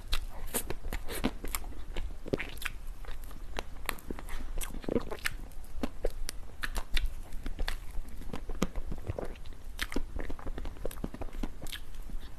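A person chewing and biting dessert close to the microphone: a continuous run of small crunches and wet clicks, several a second.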